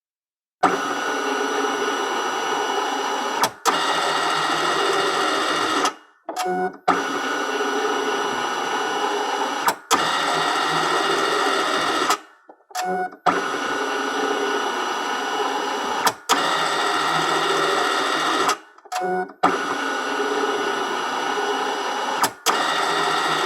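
Document scanner running repeated scan passes: a steady motor whine of several pitches lasting about five seconds, with one brief dip partway through, then a short gap of stuttering clicks before the next pass starts. The cycle comes about every six seconds, four passes in all.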